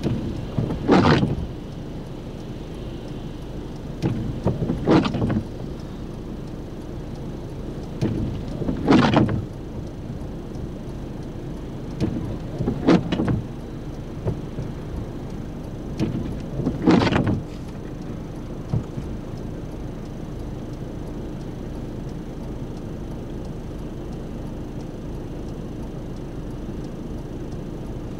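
Car windscreen wipers sweeping across a rain-wet windscreen, five evenly spaced wipes about four seconds apart, then stopping, over a steady low hum inside the car.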